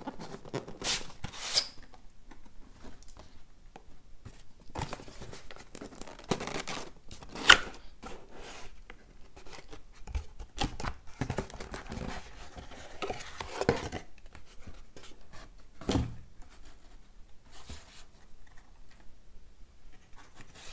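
Cardboard packaging being opened and handled: a cardboard box slid out of its black outer sleeve and its lid opened, with scraping, rustling and several sharp knocks, the loudest about seven and a half seconds in.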